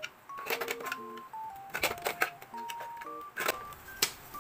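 Background music: a light melody of short, clear single notes changing pitch every fraction of a second, with sharp clicking percussion.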